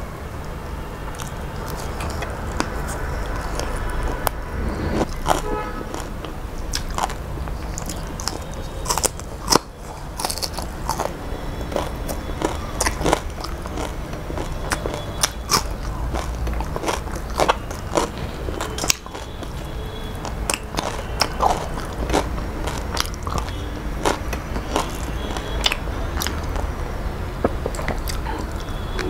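Close-up mouth sounds of a person eating rice and fried fish by hand: chewing and lip smacking, with many short wet clicks. Near the end, curry is poured from a small cup onto the plate.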